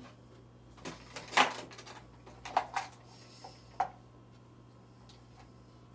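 Makeup products being picked up and handled: a few short clicks and knocks of containers, the loudest about a second and a half in, over a low steady hum.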